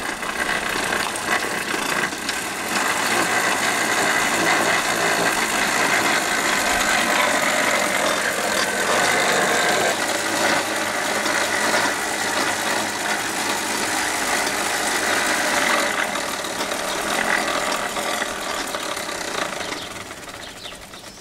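Pedal-powered bicycle blender running steadily: the rear wheel's friction drive spins the blender blade through fruit in the jug to make a smoothie. It builds up over the first few seconds and fades near the end as the pedalling eases.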